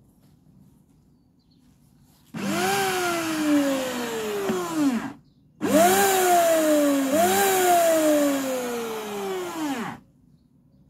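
Flymo electric hover mower's motor and fan running, switched on three times: each time the whine jumps up and then slides down in pitch before cutting off. The motor and fan are going but the blade is not being driven.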